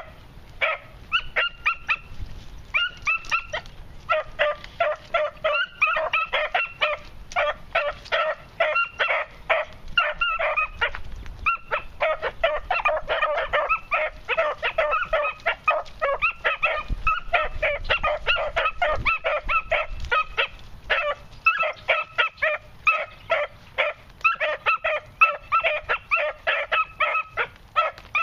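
Young beagle pups yipping and baying in quick, high-pitched runs of several yelps a second, with only short breaks: young hounds giving voice as they work a scent trail in brush.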